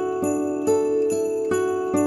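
Background instrumental music, held notes changing about twice a second.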